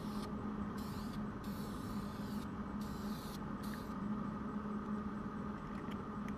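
Aerosol spray paint can hissing in about five short bursts over the first four seconds, as a touch-up coat goes on fresh welds. A steady low hum sits underneath.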